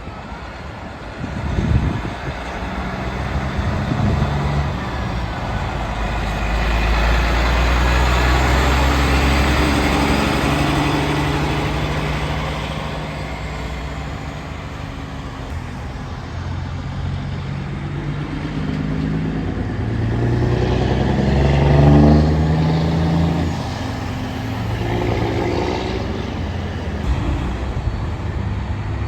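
Heavy diesel trucks running and driving past, with one loud pass building to a peak about eight to ten seconds in. Around twenty seconds in a truck accelerates, its engine pitch rising, and this is the loudest moment.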